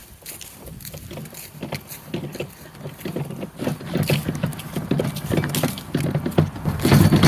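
Footsteps walking over the ground, with rustling and handling noise, getting louder in the last few seconds.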